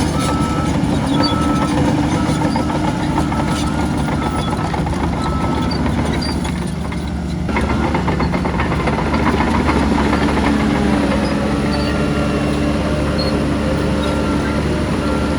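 Heavy diesel earthmoving machinery running steadily, with a reversing alarm beeping in a regular on-off pattern for the first few seconds and again near the end.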